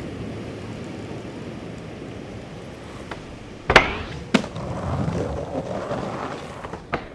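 Skateboard wheels rolling on asphalt, then a sharp tail pop a little over three and a half seconds in and a clack as the board meets the metal handrail. About two seconds of scraping follow as it slides on the rail, and near the end the loose board clacks onto the ground as the rider bails.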